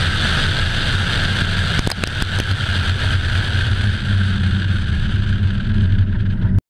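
Sports car's engine running hard at speed, heard from a camera mounted on the car's exterior and buried under a steady rush of wind noise, with a few faint clicks about two seconds in.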